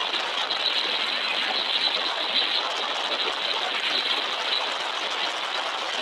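Steady road and wind noise of a moving vehicle, an even hiss with no clear engine note and no single events standing out.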